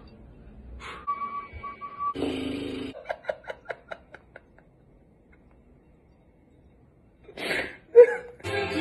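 A man laughing hard in a quick run of short bursts that die away, with a short beeping tone a little before it. After a few seconds of quiet comes another short laugh, and music starts near the end.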